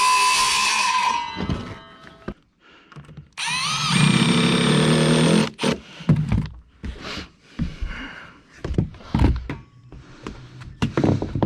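A power drill runs twice: once up to about a second in, then again for about two seconds, its pitch climbing as it spins up. A string of knocks and thumps from the wood follows.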